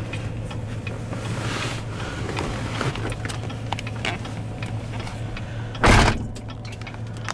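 Car engine idling, heard from inside the cabin as a steady low hum, with one loud thump about six seconds in.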